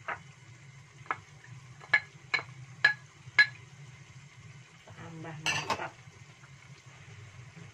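A spatula stirring and knocking in a metal wok of noodles and vegetables: about six sharp, ringing taps in the first three and a half seconds, then a louder clatter about five and a half seconds in, over a low steady hum.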